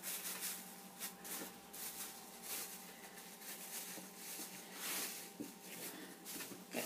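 Faint, irregular rustling and handling noises from hands working a wet felted hat and its cord on a wooden hat block, with plastic sheeting crinkling beneath; a faint steady hum runs underneath.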